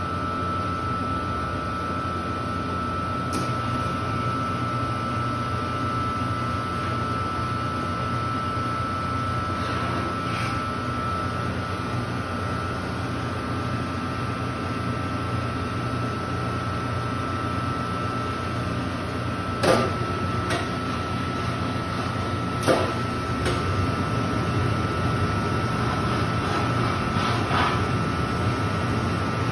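Taylor C723 twin-twist soft-serve machine running on test with a steady hum and a thin steady whine. Two sharp knocks about three seconds apart come two-thirds of the way through.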